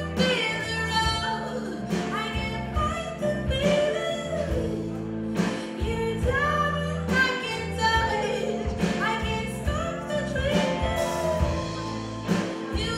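A song with a singer over a band, with a steady drum beat.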